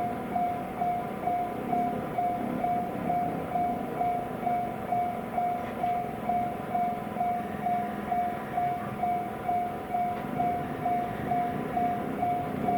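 Japanese level-crossing warning bell ringing in an even, repeating pattern of about two strikes a second, over the low rumble of a train.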